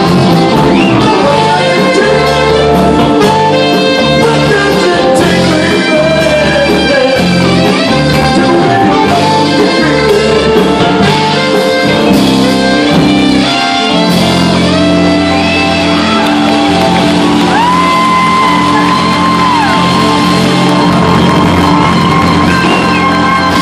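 Live band playing a soul-rock song with electric guitars, electric bass and a lead vocal, heard from far back in a large hall. In the second half the band holds long sustained notes over a steady bass.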